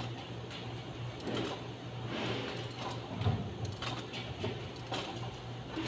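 Scattered clicks and light scraping of hand tools and parts being handled in a car's engine bay during spark plug work, over a steady low hum.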